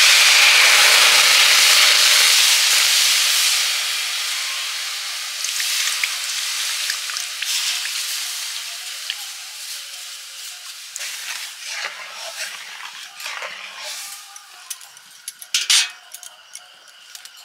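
Tamarind pulp and its soaking water poured into a hot kadai, sizzling loudly at first and dying down steadily over the following seconds as the liquid settles in the pan. A few light knocks near the end.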